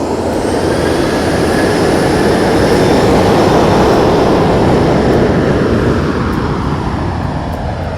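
Jet airliner passing close by. Its engine noise swells to a peak about three to four seconds in and then fades, with a high whine falling in pitch as it goes past.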